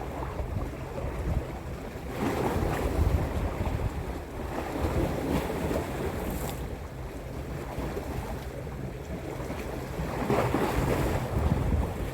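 Wind rumbling on the microphone over waves washing onto the beach, a steady noise that swells about two seconds in and again near the end.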